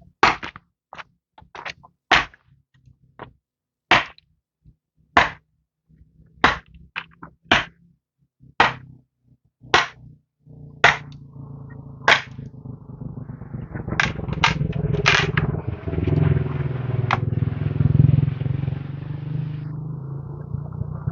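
Repeated sharp single blows of a hand tool, about one a second, each a crisp crack. About halfway through a low, steady engine hum comes in and swells, running under the last few blows.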